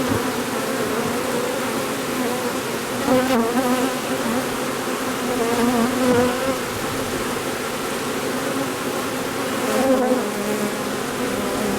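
Loud, steady buzzing of a large honey bee swarm in the air around a nucleus hive, its pitch wavering as bees fly close past the microphone.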